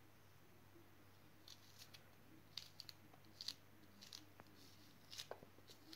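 Small knife cutting pieces off a peeled vegetable held in the hand: a string of faint, crisp cuts starting about one and a half seconds in.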